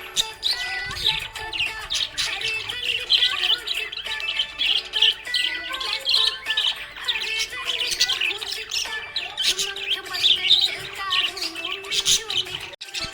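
Budgerigar chirping rapidly and continuously, with background music underneath; the sound cuts out for a moment near the end.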